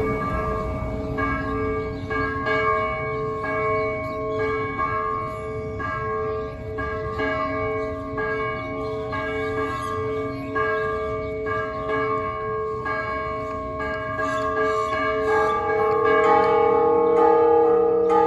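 The church bells of Colima Cathedral ringing a repique, a festive peal of repeated strikes on several bells of different pitches. About three-quarters of the way through, deeper sustained tones join and the ringing grows a little louder.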